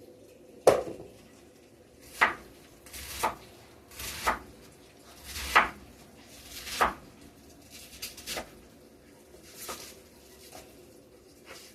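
Kitchen clatter: dishes, pots and utensils being handled and set down, about ten irregular knocks and clinks, some with a short scrape before the hit.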